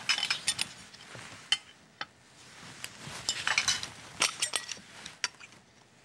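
Metal canning lids and screw bands being set onto the rims of filled glass jars. They make a scattered series of light clinks and short scrapes.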